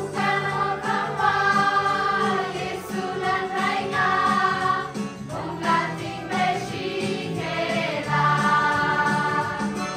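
A mixed group of men and women singing a Christmas carol together, with an acoustic guitar accompanying.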